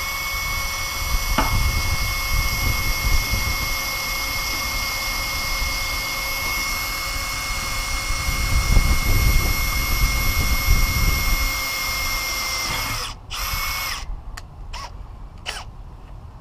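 Makita cordless drill boring a mounting hole in a truck bumper: the motor runs at a steady high whine, heavier in stretches as the bit works, for about thirteen seconds. It stops, runs again briefly, then gives a few quick trigger blips near the end.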